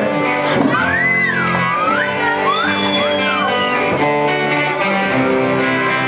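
Live rock band playing: electric guitar chords over drums and cymbals. About a second in, a lead melody line slides up and down in pitch for a couple of seconds.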